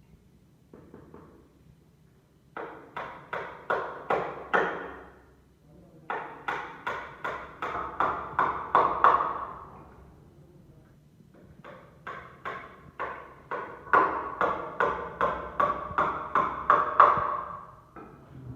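Hammer blows on wood, about three strikes a second, in three runs, each run getting louder as it goes. Each strike rings briefly. The pattern is typical of driving nails.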